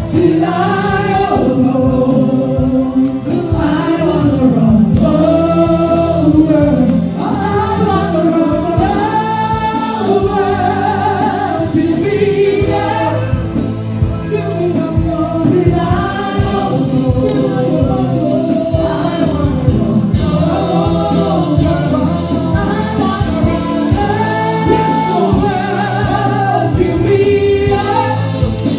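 Live gospel worship song: a woman's voice through the microphone leads, and a congregation sings along, over instrumental backing with steady low notes and a regular beat.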